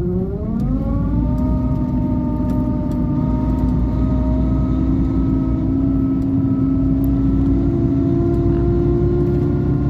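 Cabin noise of a heavy road vehicle under way: a low engine-and-road rumble with a whine that rises in pitch in the first second as it picks up speed, then holds nearly steady.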